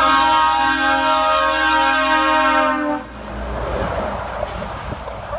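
Tractor-trailer's multi-tone air horns sounded in one loud chord lasting about three seconds, cutting off suddenly. This is followed by the rush of the truck's engine and tyres as it passes close by.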